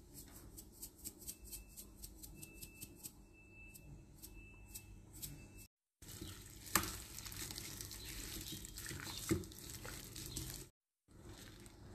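A run of quick, light clicks. Then, after a cut about six seconds in, gloved hands mix seasoned raw chicken pieces in a glass bowl: wet squishing and rubbing, with a couple of sharp knocks against the bowl.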